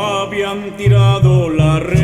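Rondalla music: voices sing a gliding melody over guitars. The low guitar and bass accompaniment drops out briefly, then comes back strongly about a second in.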